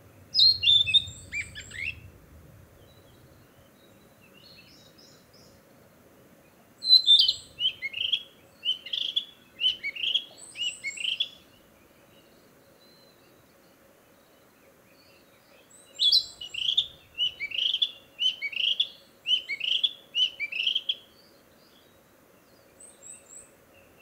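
Male narcissus flycatcher singing its territorial song: a short phrase just after the start, then two longer songs of quick, repeated, falling notes, each lasting about four to five seconds with a pause between, and a few faint notes near the end.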